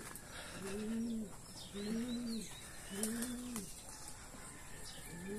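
Domestic pigeon cooing: a run of arched coos, each rising then falling in pitch, about one a second, with faint small-bird chirps above.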